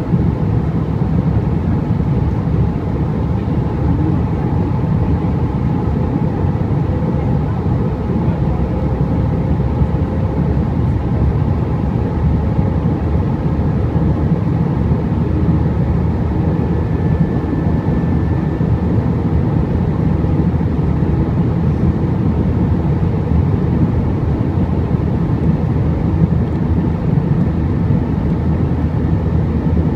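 Steady drone of jet engines and airflow inside the cabin of an Airbus A320 climbing after takeoff, heard by the wing. A faint higher whine sounds for a few seconds about halfway through.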